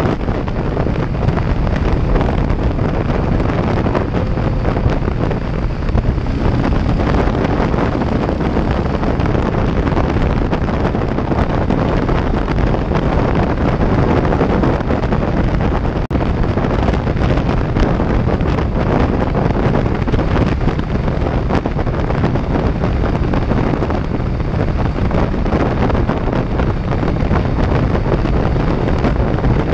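Heavy, steady wind noise on a GoPro microphone riding a Harley-Davidson motorcycle at highway speed, with the motorcycle's engine under it.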